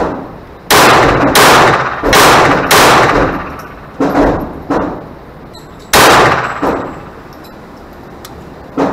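Ruger SR22 .22 LR semi-automatic pistol shots in an indoor range booth, each a sharp crack with a ringing echo. Four shots come in quick succession about two seconds long, starting under a second in, followed by more shots spaced a second or two apart, some of them quieter.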